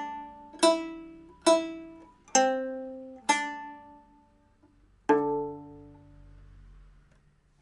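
A decades-old nanguan pipa with nylon strings and ox-bone frets, played slowly: four single plucked notes about a second apart, then a pause and a last note about five seconds in that rings out and fades, closing the piece. The instrument is being test-played after a repair and retuning.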